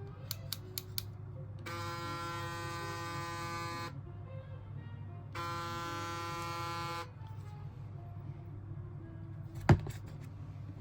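Panasonic ER1610 hair clipper switched on and run twice, a steady buzz lasting about two seconds each time, tested after its battery replacement. A few light clicks come before the first run, and a single sharp knock comes near the end.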